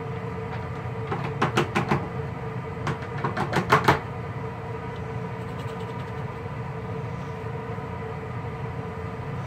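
Rattling and clanking of a rabbit cage being handled, in two bursts about a second and about three seconds in, over a steady mechanical hum in the background.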